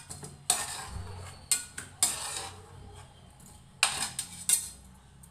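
A metal spoon scraping and clinking against a metal pot in a series of about six clatters, as boiled raw mango pieces are scooped out of it.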